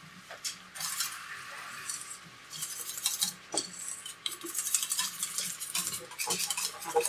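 Wire whisk beating flour batter in a stainless steel mixing bowl: quick, uneven metal-on-metal clicks and scrapes that get going about two and a half seconds in.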